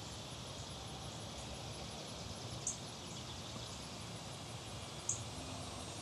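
Steady outdoor background noise with two short, high chirps about two and a half seconds apart.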